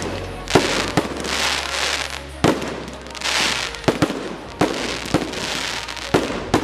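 Aerial fireworks shells bursting: a string of sharp bangs, roughly one a second, with the hiss and crackle of burning stars between them.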